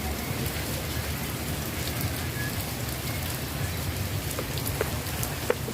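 Steady rain falling, with scattered drops ticking close by and one sharper tap near the end.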